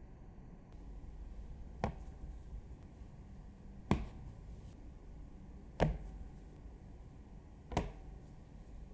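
Four short, sharp knocks, evenly spaced about two seconds apart, over a low steady background hum.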